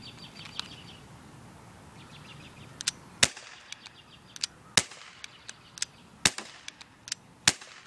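Daisy Powerline 15XT CO2-powered semi-automatic BB pistol firing four sharp cracks, about one every second and a half, in the second half, with fainter clicks in between.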